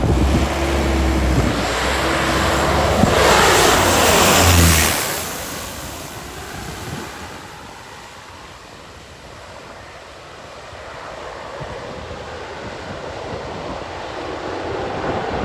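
A propeller aircraft passes close by, its engine note falling in pitch as it goes past about four seconds in, then fades, leaving steady wind and surf noise.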